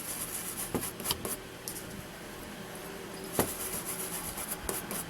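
Small hand tools working on amplifier wiring at a workbench: scattered sharp clicks and short scraping rasps, with one louder click about three and a half seconds in.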